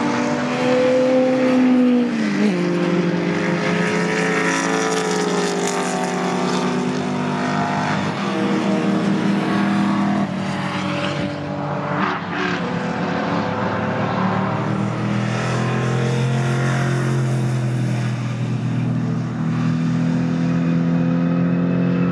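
V8 engines of historic touring cars, a Ford Mustang among them, running hard past on the circuit. Several engine notes overlap; one drops sharply about two seconds in as a car goes by, and the notes rise and fall as the cars accelerate away.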